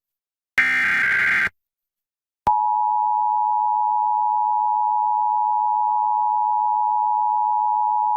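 An Emergency Alert System SAME header: a shrill data burst of about a second. About a second of silence follows, then the two-tone EAS attention signal starts and holds steady, announcing the Required Monthly Test alert.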